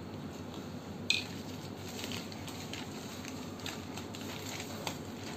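Metal hand tools clinking lightly as they are handled and laid out on the floor, with one sharper clink about a second in.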